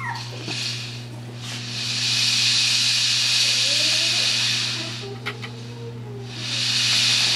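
A steady hiss, one long stretch of about three seconds and a shorter one near the end, over a constant low electrical hum.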